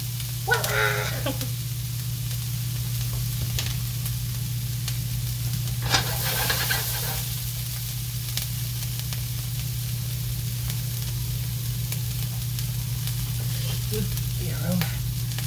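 Diced onions and green peppers sizzling steadily as they sauté in a hot nonstick frying pan, over a steady low hum. A sharp tap sounds once about six seconds in.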